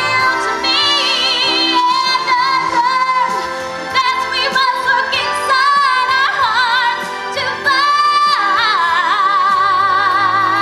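Music: female voices singing sustained notes with wide vibrato over instrumental accompaniment.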